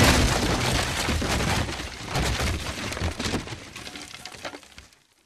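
Cartoon explosion sound effect: a loud crackling blast that dies away over about five seconds.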